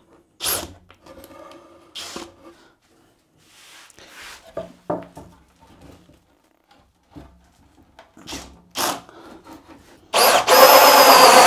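A few soft knocks and handling sounds, then about ten seconds in a Bosch GSR 18V-60 FC cordless drill with a hole saw starts up and runs loud and steady, cutting into an OSB board.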